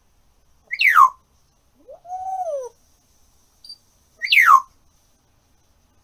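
African grey parrot whistling: two sharp whistles that slide steeply downward, about three and a half seconds apart, with a lower, rounded hoot between them that rises and then falls.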